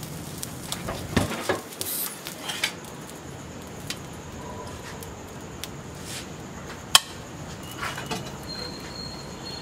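Scattered clinks and knocks of a steel spatula against steel plates as pulao rice is served, over a steady background hiss, with one sharp knock about seven seconds in.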